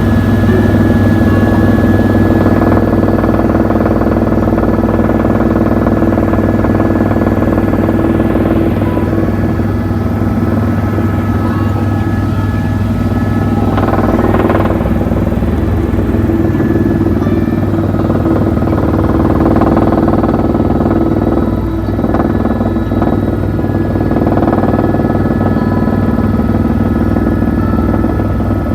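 Helicopter running with a steady, loud drone from its engine and rotor.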